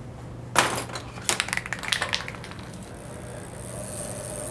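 A sharp knock, then about a second of rattling clicks, as of metal tools being handled. A faint steady whirring hiss comes in near the end.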